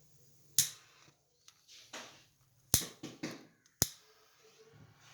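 A few sharp clicks and taps, the three loudest coming about half a second in, near the middle and about a second later, with softer taps and a brief rustle between them over a faint steady hum.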